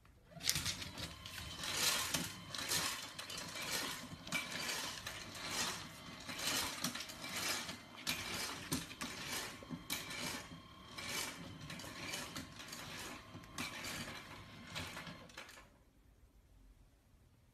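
Automatic pet feeder dispensing dry food: its motor turning and pieces clattering into the stainless steel bowl, a run of irregular clicks and rattles that stops near the end.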